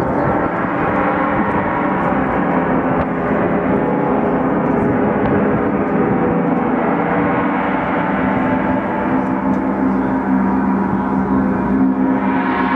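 Large Paiste gong played with a soft padded mallet, a loud, steady wash of many overlapping ringing tones, with brass singing bowls ringing along. The sound grows brighter near the end.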